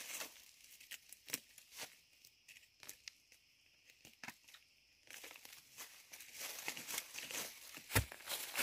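Dry leaf litter and bamboo debris crackling and rustling as it is pulled about by hand, sparse and quieter in the middle, busier after about five seconds. Near the end a shovel blade strikes into the soil with one sharp thud.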